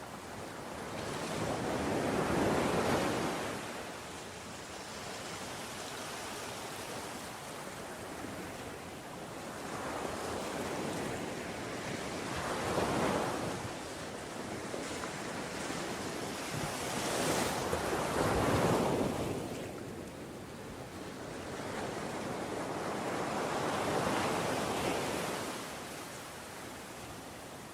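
Ocean surf: waves rushing in one after another, each a swell of noise that builds and fades over a few seconds, about every six seconds.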